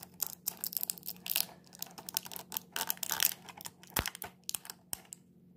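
Irregular clicking and crinkling of small plastic packaging as tiny diecast model wheels and tires are pried out of it by hand, with a single knock about four seconds in.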